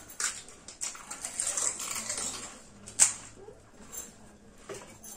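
People eating fuchka (pani puri) fast: crisp shells cracking and mouths chewing and slurping, heard as scattered clicks and crunches with a sharp crack about three seconds in.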